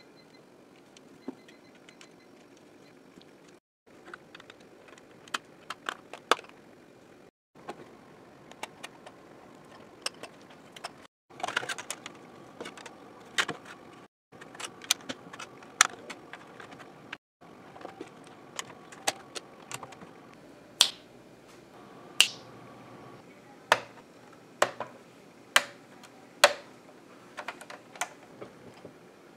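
Plastic Lego bricks being handled and snapped together: an irregular run of sharp clicks and snaps, some much louder than others, broken by several brief dead-silent gaps where the footage is cut.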